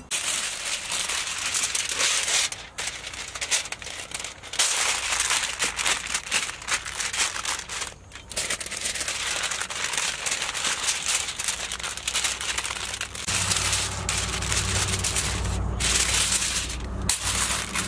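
Aluminium foil crinkling and crackling as it is handled and unrolled from the roll. A low rumble of handling joins in for the last few seconds.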